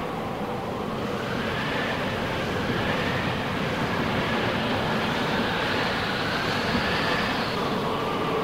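A swollen river in flood rushing past: a steady roar of fast, turbulent water, with a faint wavering tone over it.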